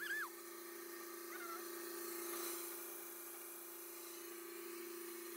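A belt-driven stone saw with a 24-inch water-fed blade running with a steady, even hum. A few short chirps sound over it near the start and about a second and a half in.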